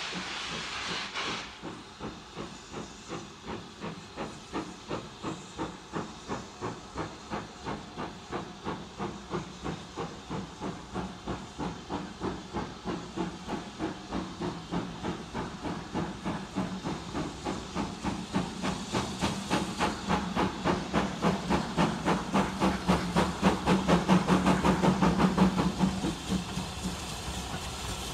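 Two steam locomotives working hard together, their exhaust beats chuffing rapidly and growing louder as they come closer. A loud hiss of steam in the first second or so.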